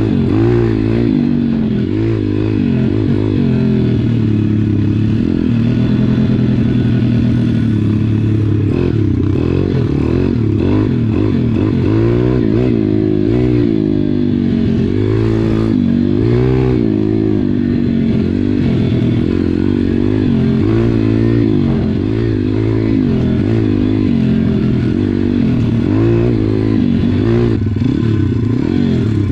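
Small single-cylinder four-stroke SSR pit bike engine being ridden, its pitch rising and falling over and over as the throttle is opened and closed.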